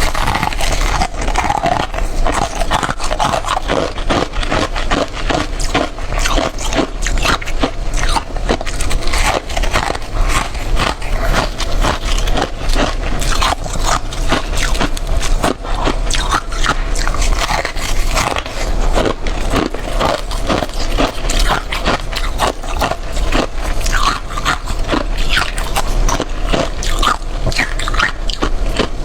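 Powdery freezer frost being bitten and chewed: a continuous, rapid run of soft, crackly crunches.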